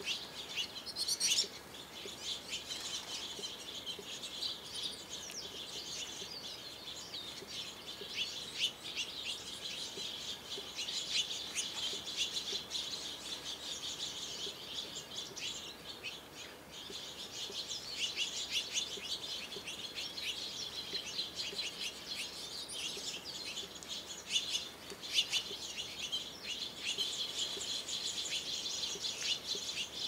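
Small finches chirping and twittering, a dense run of short high chirps that thins out briefly about halfway through.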